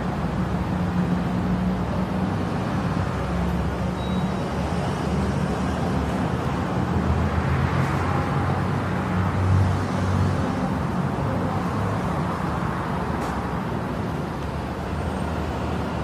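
Metro platform ambience: a steady low rumble and hum under a wash of noise, growing a little louder about halfway through.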